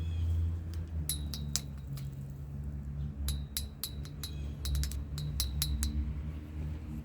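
Irregular light clinks, some in quick runs of several, each with a short high ring, over a steady low hum.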